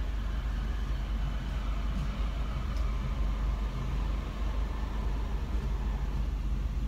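Car engine idling, a steady low rumble heard from inside the car.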